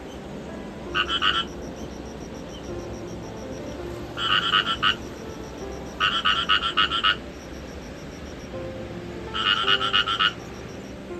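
Frogs calling in a pond: four bouts of rapid pulsed croaking, each about half a second to a second long, a few seconds apart.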